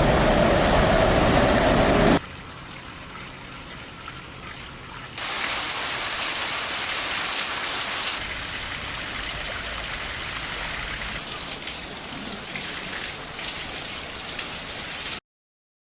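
Rain and running water, heard as a series of short clips that change abruptly every few seconds, then cut off to silence near the end.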